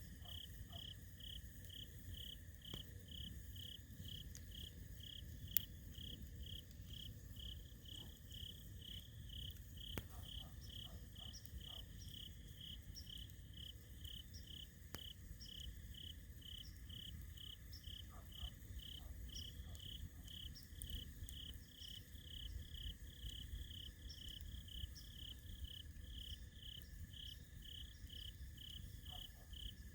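Crickets chirping in an even rhythm, about two chirps a second, over a steady higher insect trill, with a few sharp pops and small crackles from a campfire.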